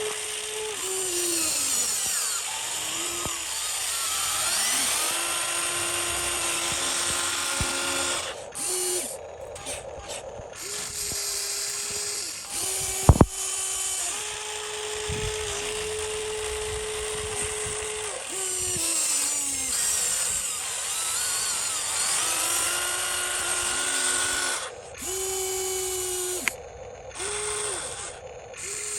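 Electric motors and plastic-and-metal gearboxes of radio-controlled construction models (a Huina 1593 excavator among them) whirring in short runs that start, stop and slide up and down in pitch as the machines are worked, with grinding, scraping noise over them and one sharp click about halfway through.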